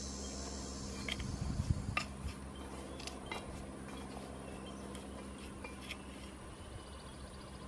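Small trowel clicking and scraping against a glazed ceramic flower pot as wet Portland cement is spread over its broken side: scattered light clinks, busiest and loudest one to two seconds in.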